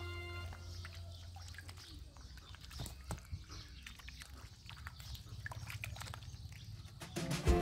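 Ducklings peeping with short, irregular chirps while they paddle and dabble, with small splashes of water. Background music fades out at the start and comes back in about seven seconds in.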